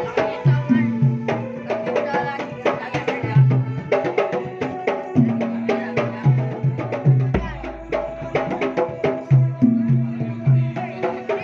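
Pencak silat jidor music played over a sound system. Hand-drum strokes repeat in a steady pattern under a melody, and a jidor bass drum gives a deep, long-ringing boom about three-quarters of the way through.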